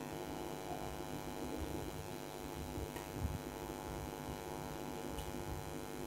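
Steady electrical mains hum with a stack of buzzing overtones, with a couple of faint clicks.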